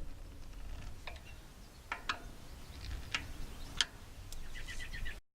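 Scattered light clicks and taps, a few seconds apart, over a low wind rumble on the microphone. Near the end comes a quick run of about six bird chirps, then the sound cuts off abruptly.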